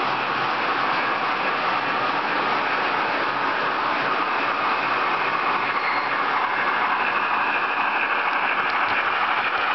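Model train running on the layout's track: a steady whirring rumble of small wheels and motor on the rails, with a faint rising whine creeping in toward the end as it approaches.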